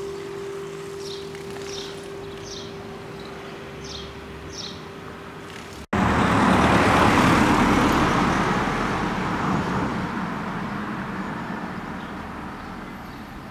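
A road vehicle passing close by, loud at first and fading away over several seconds. Before it, a church bell's lingering hum dies away under a few short high chirps.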